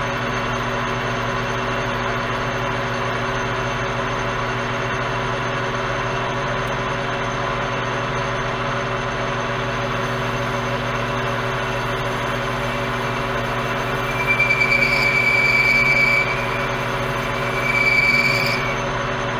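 Metal lathe running steadily with a humming gear drive while a boring bar takes a light skim cut inside a bore. Twice, about fourteen and about eighteen seconds in, the cut gives a high-pitched squeal lasting a second or two.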